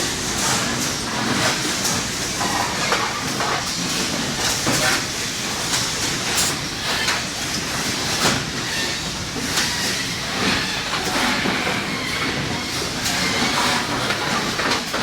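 Factory assembly-line noise: a steady mechanical din with frequent short knocks and clicks of parts and tools.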